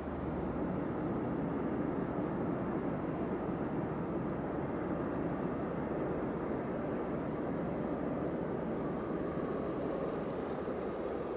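Steady, even rumble of a vehicle running by unseen.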